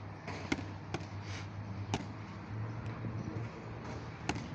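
Boxing gloves smacking against focus mitts in a pad-work drill: four sharp slaps, two close together about half a second apart near the start, one about two seconds in and one near the end.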